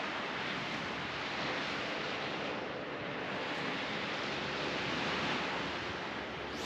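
Steady wash of surf with wind rushing on the microphone, an even noise that swells slightly and eases.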